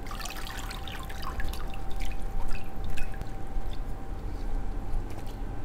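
Water dripping and splashing from wet chicken wings lifted out of a bowl of water in a metal mesh strainer: a quick patter of drips that thins out after about three seconds, over a faint steady hum.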